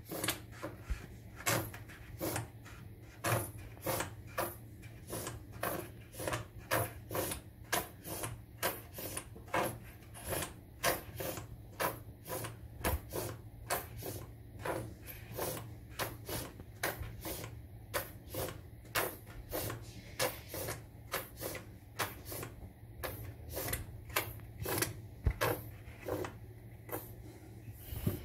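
Plastic nozzle of a grout-filled hair-dye applicator bottle rubbing back and forth along ceramic tile joints, pressing grout into the gaps. Short scraping strokes come steadily, about two a second.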